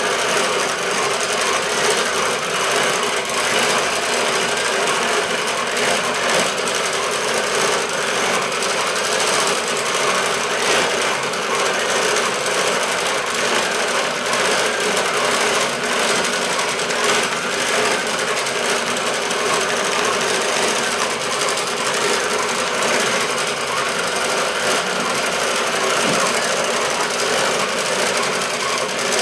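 Sewing machine on a DIY CNC quilting frame stitching continuously, its needle running at a steady rapid rate as the frame guides it through a quilting pattern.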